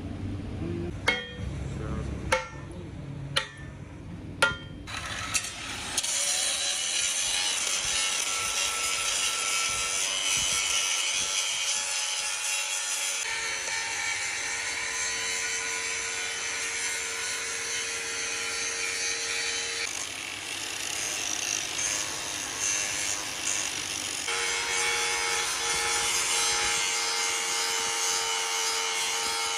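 Five sharp metallic clanks about a second apart, then a power tool working metal with a steady scraping noise and a whine that shifts in pitch a few times.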